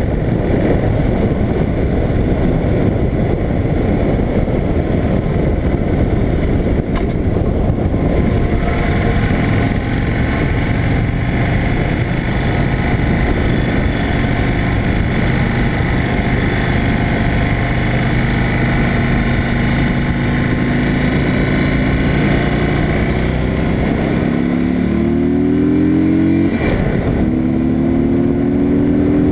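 Harley-Davidson Street Glide V-twin under way, heard from low on the engine guard, with wind rushing over the microphone. At first the engine is buried in the wind noise. Then it holds a steady note, and near the end it rises twice as the bike accelerates through a gear change.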